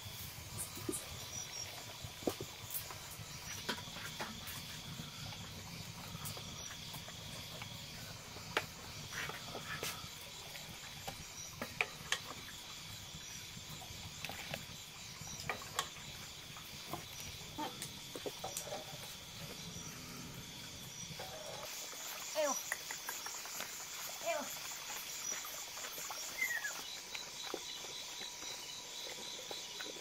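Crickets chirping steadily in repeating pulses, with scattered sharp clicks and knocks over them. A second, faster high chirping joins about two-thirds of the way in.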